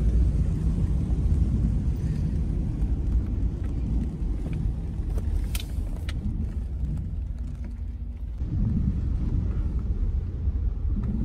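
Car driving, heard from inside the cabin: a steady low rumble of engine and road, with a couple of faint clicks about halfway through.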